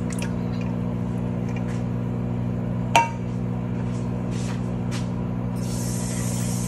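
Microwave oven running with a steady electrical hum while coconut milk is poured from a can into a metal pot. About three seconds in, the can clinks once against the pot with a brief ring. A steady hiss comes in near the end.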